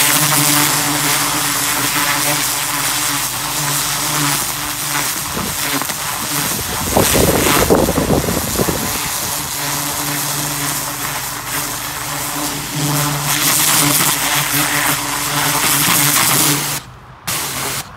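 Pressure washer running, its wand's jet blasting into loose soil with a steady hiss over the machine's hum, louder for a couple of seconds midway. The jet is tearing weeds out of the bed by the roots. The spray stops near the end, briefly starts again, then stops.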